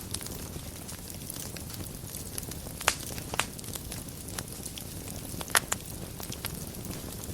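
Wood fire burning in a fireplace: a steady low rumble of flame with soft crackling throughout and a few sharp pops, the loudest about three seconds in and again about five and a half seconds in.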